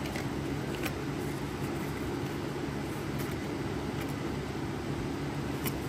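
Steady low background hum, with a couple of faint clicks.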